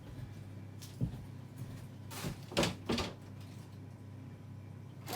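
Kitchen cupboard door being opened and things knocked about inside. There is one knock about a second in, then a quick run of knocks and clatters between two and three seconds in, over a steady low hum.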